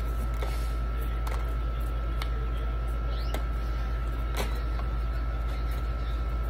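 A knife scraping the spines off a prickly pear cactus pad (nopal), one short scrape about every second, over a steady low machine hum with a constant high whine.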